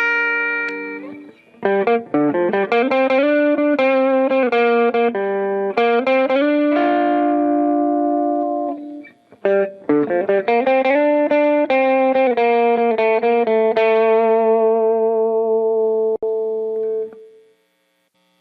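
Squier Classic Vibe Starcaster electric guitar, fitted with an upgraded wiring harness and tone pots, played in two phrases of picked and strummed chords. There is a short break about halfway through, and the last chord rings out and fades away near the end.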